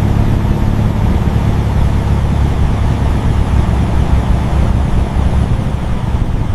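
Truck engine running steadily with a low rumble, cutting in and out abruptly like an added sound effect.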